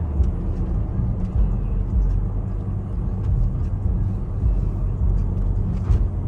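Steady low rumble of a BMW X6M being driven, engine and road noise heard from inside the cabin, with a few faint ticks.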